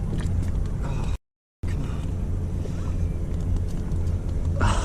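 A steady low motor hum, broken by a brief total dropout a little over a second in, with a short louder sound near the end.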